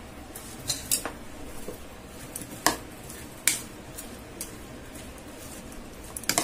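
Serving spoon stirring and tossing chopped salad in a bowl: soft squishing of wet vegetables and cream, with a few sharp clicks of the spoon knocking against the bowl at irregular moments and a quick cluster of them near the end.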